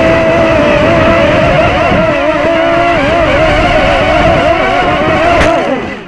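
Walkera QR Ladybird micro quadcopter's four motors and propellers whining loudly close to the microphone, the pitch wavering as the throttle changes, with wind rushing over the microphone. Near the end the whine falls in pitch and fades as the heavily loaded quad drops.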